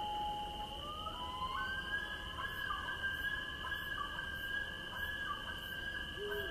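Eerie horror ambience for a night forest: a steady high whine like insects runs under slow, wailing tones that slide up and hold. Faint high ticks repeat a little less than twice a second from about halfway in.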